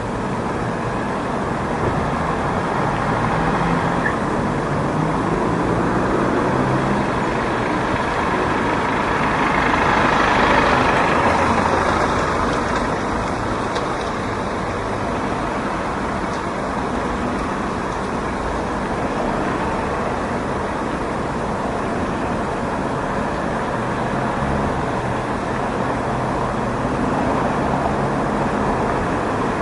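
Outdoor street ambience of road traffic: a continuous wash of passing cars and engines, with one vehicle passing loudest about ten seconds in.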